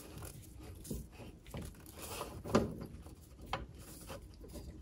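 Light scattered clicks and scraping of a metal retainer nut tool and bearing retainer being turned by hand onto the threads inside a Mercruiser outdrive lower unit, the clearest tap about two and a half seconds in.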